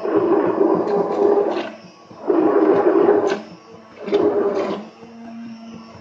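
Hand-held immersion blender pureeing lentils with a little water into a thick cream, switched on in three loud bursts of about a second each, then running lower and quieter near the end.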